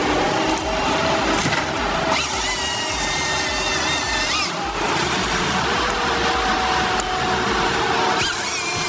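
Heavy forestry machine running: steady engine and hydraulic noise, with a higher whine that comes in about two seconds in, holds briefly and stops, and comes in again near the end.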